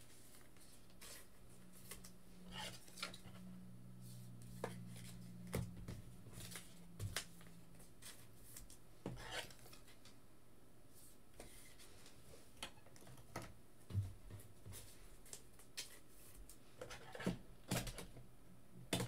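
Faint, scattered clicks, taps and rustles of trading cards being handled and slid into plastic sleeves and top loaders, with a low hum through the first several seconds.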